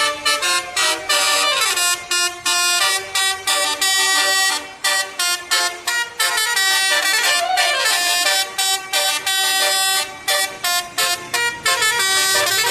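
Tour bus's Basuri multi-tone 'telolet' air horn playing a fast tune of short blaring notes, one after another, breaking off briefly a few times.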